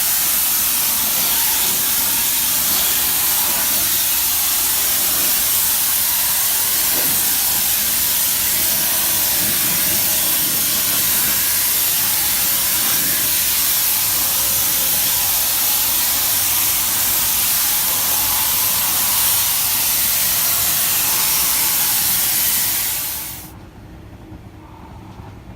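Steady, loud hiss of rushing air in an automotive paint spray booth, cutting off suddenly about 23 seconds in.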